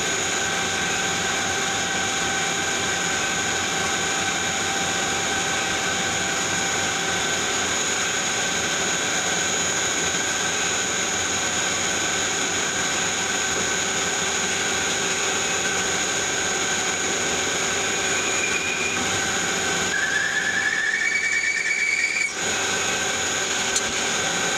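Tormach Slant Pro CNC lathe running under flood coolant while drilling a 304 stainless steel part: a steady machine whine made of several fixed tones over a constant rush of spraying coolant. About twenty seconds in, a higher tone rises in pitch for a couple of seconds and then cuts off abruptly.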